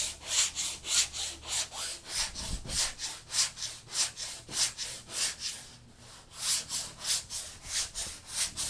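Hand sanding of fairing filler on the boat's cabin side: a sanding block rasping back and forth in even strokes, about three a second, with a short pause about six seconds in.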